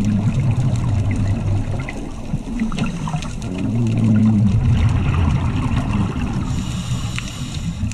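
Muffled underwater bubbling and rumble of a scuba diver's exhaled regulator bubbles, heard through an underwater camera housing, with a brief hiss near the end.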